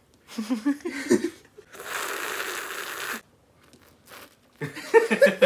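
A person slurping frothy cold coffee from a glass: one long noisy slurp about two seconds in, with short throaty vocal sounds near the start and near the end.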